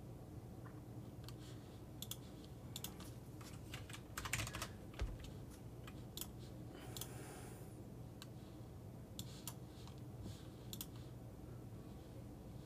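Faint, irregular clicking of computer keyboard keys, typing in short spurts with a quick run about four seconds in, over a low steady hum.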